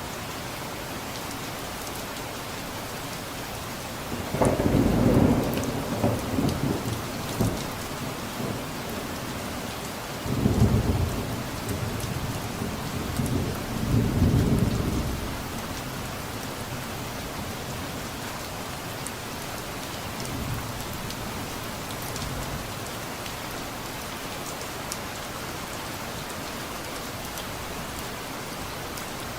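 Steady rain falling, with distant thunder rumbling twice: once about four seconds in and again about ten seconds in, each rumble lasting a few seconds before fading back into the rain.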